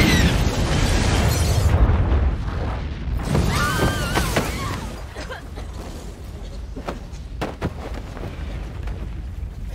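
Film explosion sound effect: a deep boom of a building blowing up, rumbling for about two seconds and fading away. A brief cry follows, then a few sharp knocks.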